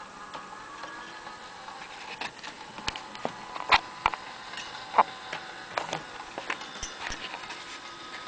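Irregular light clicks and knocks, about a dozen in a few seconds, the loudest two about a second apart, over a faint steady hum.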